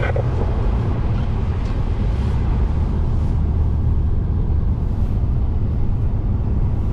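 A vehicle driving, with a steady low engine and road rumble and a haze of wind noise, unchanging until it cuts off abruptly at the end.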